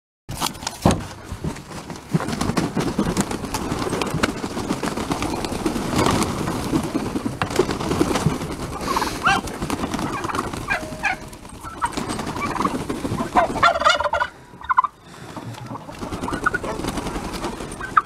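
A mixed flock of chickens, turkeys and Muscovy ducks calling and clucking as they crowd out of their night coop, with the fluttering of wings as birds flap down from the doorway. A few louder pitched calls stand out in the second half.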